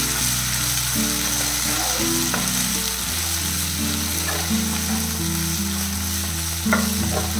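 Chicken pieces frying in a non-stick pan on a low flame, sizzling steadily as they are stirred with a wooden spatula, with a few light knocks of the spatula against the pan.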